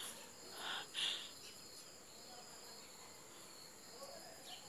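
Insects, likely crickets, chirring steadily in high, even tones, with two faint brief sounds in the first second or so.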